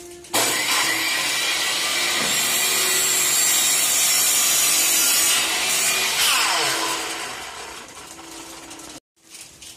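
Makita miter saw switched on and cutting through a wooden strip, its motor and blade giving a loud, steady high whine. A little past the middle the whine falls in pitch and fades as the blade spins down, then the sound cuts off suddenly.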